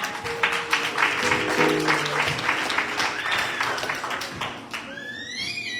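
Congregation clapping and applauding over held organ chords, with a voice calling out near the end.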